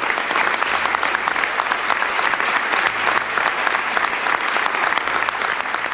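Large audience applauding steadily, a dense patter of many hands clapping at the close of a speech.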